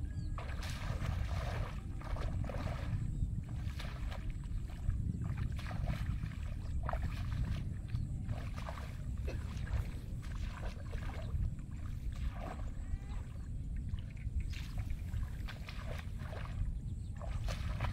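Footsteps swishing and squelching through wet grass and shallow water, as irregular short strokes, over a steady low rumble.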